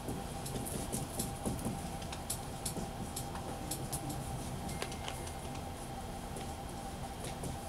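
Short, scratchy strokes of a dry-erase marker on a whiteboard, coming irregularly, over a steady room hum.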